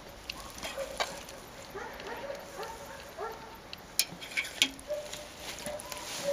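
A few sharp metal clicks and knocks as the winch's control rod is worked, the loudest about four seconds in. Short rising squeaks repeat about twice a second through the first half.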